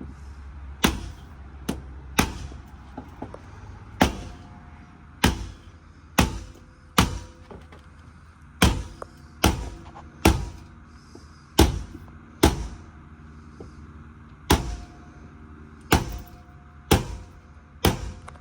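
A series of sharp knocks or blows, about seventeen at an irregular pace of roughly one a second, each dying away quickly.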